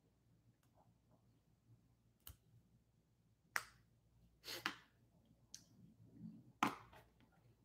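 A handful of faint, sharp clicks and light taps, about five spread over several seconds, the strongest about three and a half seconds in and again near the end, with quiet room tone between them.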